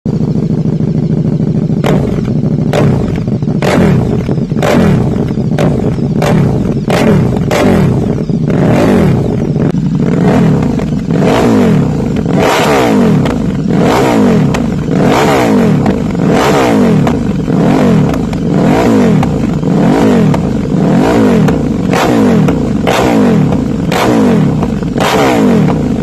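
KTM 1290 Super Duke's V-twin, through an Akrapovic GP prototype slip-on exhaust, revved over and over at standstill: the pitch climbs and drops about once a second, with sharp pops and cracks between the blips.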